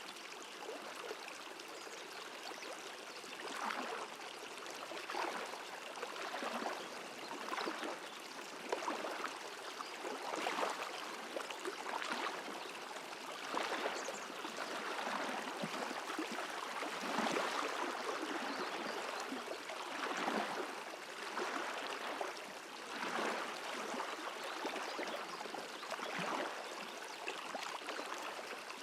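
Water in a flowing stream: a steady rushing and trickling with small irregular surges every second or two.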